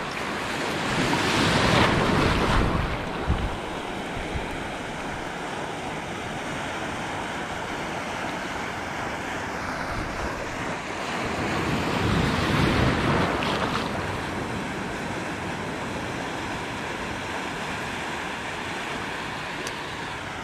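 Surf and shallow water washing over a reef flat, with wind buffeting the microphone; the wash swells louder twice, about a second in and again about twelve seconds in.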